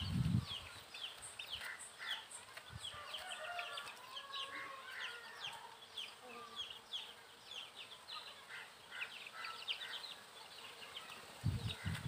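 Many small birds chirping quickly and irregularly, with a few soft chicken clucks in the first half. There are low thumps at the very start and again near the end.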